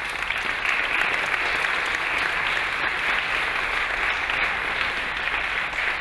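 Audience applauding in a lecture hall: steady clapping from a large crowd, beginning right at the start and tapering off near the end.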